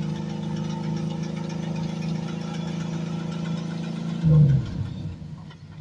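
Off-road vehicle's engine running steadily under load on a rock climb, then a brief loud rev about four seconds in that falls away quickly. An onlooker says something about it doesn't sound right.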